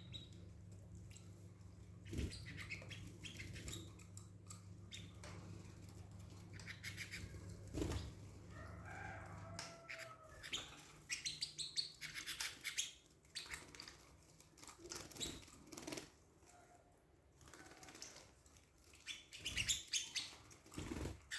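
Canaries fluttering their wings in quick, scattered bursts, with a few short chirps among them.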